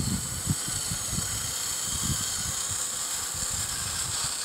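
Radio-controlled Bruder CAT toy wheel loader driving over gravel: its small electric drive motor and gearbox give a steady high whine, with an irregular low rumble underneath.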